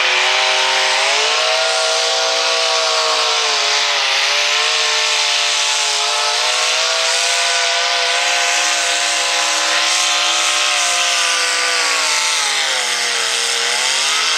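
V8 engine of a hot rod pulling tractor running at high revs under load as it drags the weight-transfer sled. The pitch holds fairly steady, then pulls down about thirteen seconds in and picks up again near the end.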